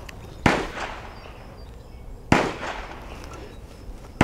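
Two gunshots about two seconds apart, each a sharp crack with a short ringing tail, and a third right at the end.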